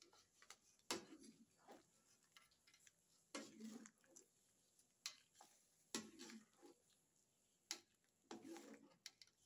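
Quiet clinks and scrapes of a stainless-steel mesh strainer against a stainless pan, with a wooden spoon scooping steamed broccoli into the strainer. There are a few sharp clicks and several short scraping rustles.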